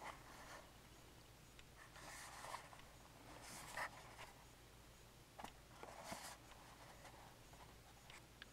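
Faint rustling and scraping of fingers on a small cardboard box as it is turned over in the hands, a few short scrapes several seconds apart.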